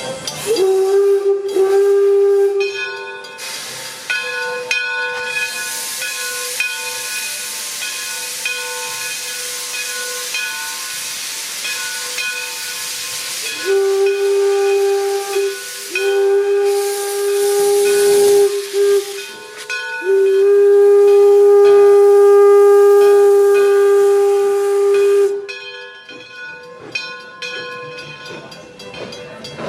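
Steam locomotive whistle on Detroit & Lima Northern No. 7, an 1897 Baldwin 4-4-0, giving one long blast about half a second in. About ten seconds of steady steam hiss follow, then three more long blasts close together, the last the longest and loudest.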